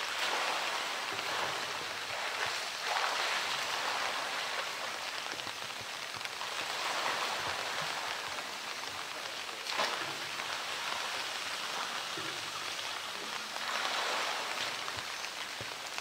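Steady rain falling on hard surfaces, an even hiss with one sharp tap about ten seconds in.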